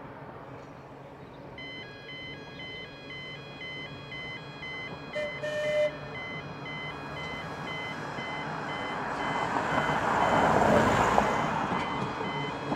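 A railway level crossing warning alarm beeps steadily in an alternating two-tone pattern as a train approaches. The train's running noise grows, loudest about ten seconds in.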